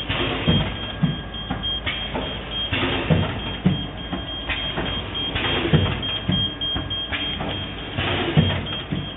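An 8 kW automatic PVC high-frequency welding machine cycling: short hissing bursts about every two and a half seconds over a steady low hum, with scattered mechanical clicks.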